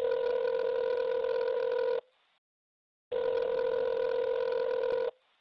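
Telephone ringing: two steady rings of about two seconds each, a second apart.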